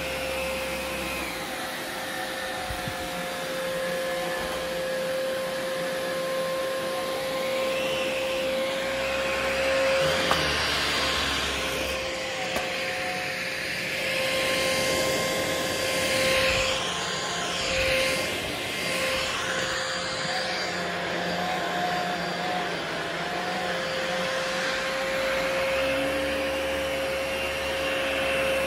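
Philips 7000 Series 7057/01 cordless stick vacuum running: a steady motor whine under a rush of air that swells and fades from moment to moment.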